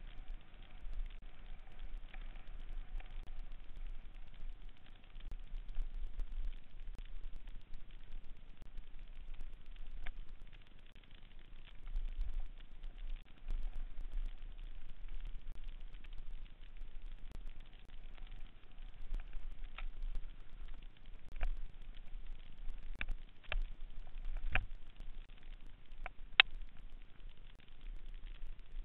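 Mountain bike riding fast down a dirt singletrack, picked up by a camera riding with it: a steady crackling rush of tyre and wind noise with a low rumble, and a handful of sharp knocks from the bike jolting over the trail in the second half, the loudest near the end.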